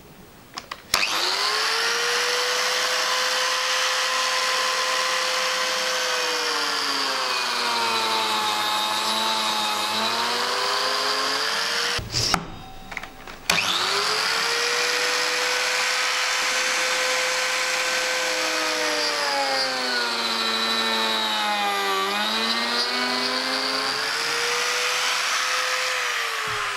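Old Lamello biscuit joiner running twice, each run a steady motor whine. Partway through each run the pitch drops for a few seconds as the V-groove cutter disc plunges into the wood, then climbs back before the motor is switched off.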